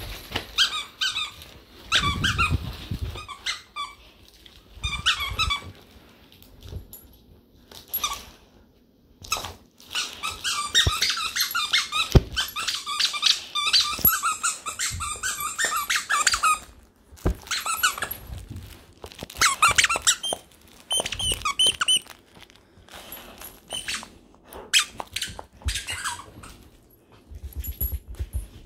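A dog's duck squeaker toy squeaking in repeated short bursts as the puppy bites and chews it, with a long fast run of squeaks near the middle. Two sharp knocks stand out, about twelve and seventeen seconds in.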